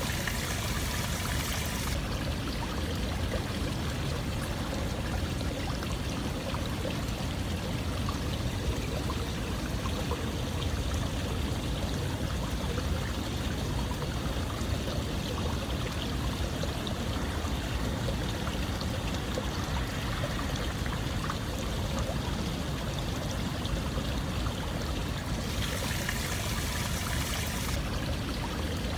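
Running water with a steady rushing and trickling, like a flowing stream. The hiss turns brighter for a couple of seconds at the start and again near the end.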